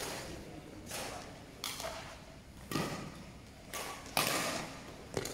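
Badminton rally: a shuttlecock struck back and forth by racquets, a series of sharp smacks roughly every second, each ringing briefly in the echo of a large hall.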